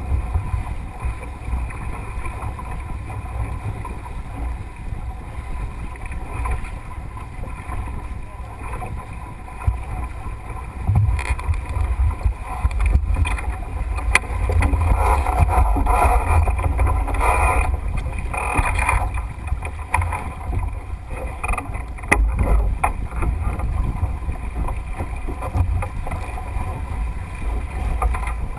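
Wind buffeting the microphone over water rushing and splashing along the hull of a Melges 24 sailboat under way. It grows louder and more splashy about eleven seconds in.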